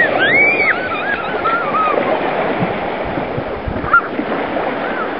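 Small waves washing on a sandy beach in a steady surf hiss. High, wavering whistle-like calls sound over it in the first two seconds, with a short one about four seconds in.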